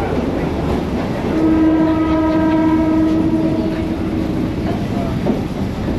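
Train horn sounding one steady, single-pitched blast of about three seconds, beginning about one and a half seconds in. It sounds over the continuous rumble of the commuter train running on the rails.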